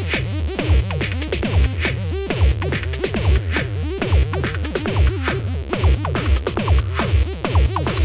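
Electronic techno music: a steady, regular kick drum under busy, short synth notes, with a high hissing sweep that slides down in pitch near the end.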